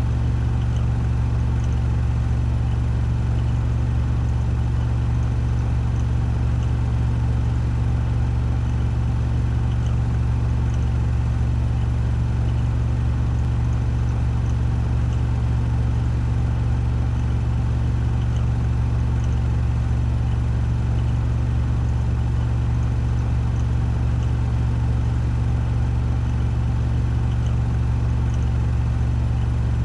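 Washing machine drum spinning at 1400 rpm in its spin cycle: a steady, deep hum with a faint whir above it.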